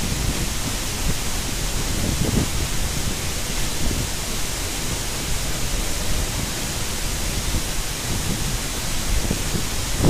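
Waterfall rushing steadily, an even hiss of falling water, with a couple of brief low rumbles.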